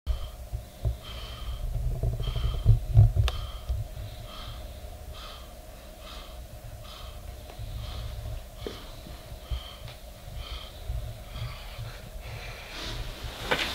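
Heavily pregnant Weimaraner in labour breathing heavily, a rasping breath about once a second, over a faint steady hum. A louder rustling noise comes near the end.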